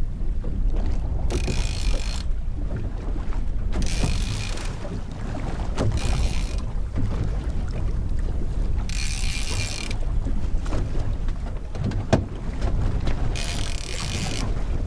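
Fishing reel whirring in about five short bursts, each a second or less, while a fish is fought on rod and reel. Underneath is a steady low rumble of wind and boat noise.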